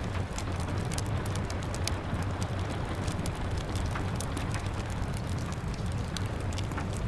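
Rain pattering on a window glass mixed with a wood fire crackling: a steady hiss and low rumble, dotted with many small, irregular sharp pops and ticks.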